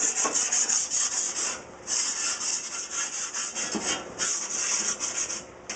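Diamond file rubbed in quick back-and-forth strokes along the freshly cut edge of a pane of window glass, smoothing the sharp edge. It comes as three runs of strokes with short pauses between them.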